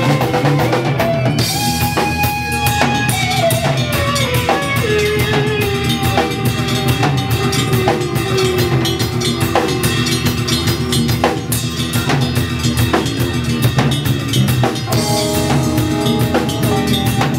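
Live instrumental jazz-metal fusion band playing, the drum kit to the fore with busy snare and cymbal hits over bass. A held lead note glides down in pitch from about two to five seconds in.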